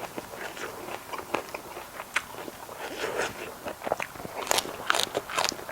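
Close-up chewing of a mouthful of crunchy food, a run of wet crunches and mouth clicks that grows louder and sharper about four and a half seconds in.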